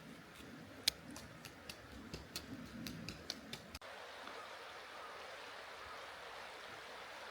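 A dozen or so quick, light clicks and ticks over a faint steady rush of a stream; the clicks stop abruptly about four seconds in.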